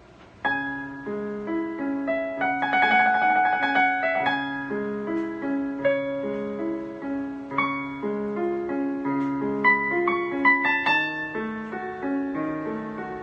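Solo piano playing a slow melody over a steady pattern of broken chords, coming in about half a second in after a fading note, with a quick trill about three seconds in.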